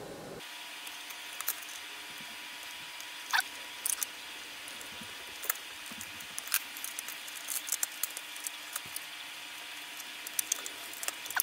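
Irregular light clicks and taps as a handheld CCTV camera tester's plastic case is closed up and its blue corner bumpers are pressed back on, over a faint steady hiss.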